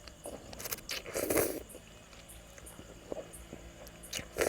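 Close-up mouth noises of eating glass-noodle salad: a loud wet slurp-and-chew about a second in, smaller smacks in between, and another short burst near the end.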